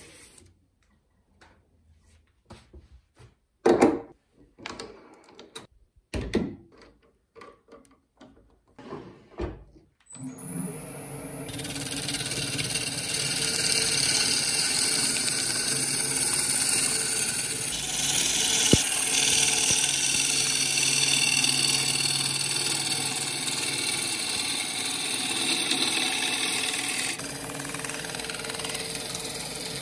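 A few sharp knocks and clunks in near quiet for about ten seconds, then the wood lathe starts up and a bowl gouge cuts into the spinning laburnum burl: a steady hiss of wood being shaved over the low hum of the lathe motor, easing a little near the end.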